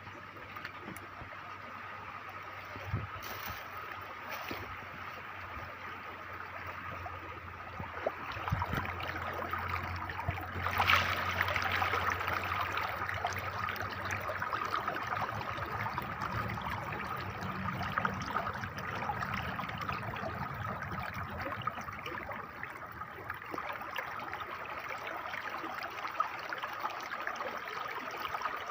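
Stream water flowing and trickling in a steady rush that grows a little louder about a third of the way in, with a few brief knocks.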